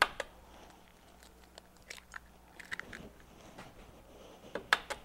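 Eggs being cracked on the rim of a bowl: a scattered series of sharp taps and shell crunches, the loudest cluster near the end.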